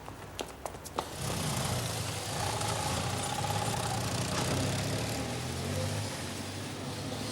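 A prison transport van's engine running as the van drives off, starting about a second in and continuing steadily, after a few sharp clicks like footsteps.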